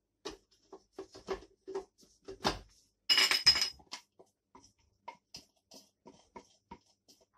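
Small kitchen food chopper's bowl and a glass mixing bowl clinking and knocking as a spatula scrapes chopped garlic out of the chopper into the mixing bowl: a run of light taps, a sharper knock about two and a half seconds in, and a bright ringing clatter just after three seconds.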